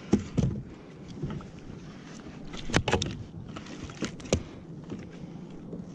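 Several sharp knocks and clicks of fishing gear and a measuring board handled against a plastic fishing kayak, over a steady hiss of wind and water.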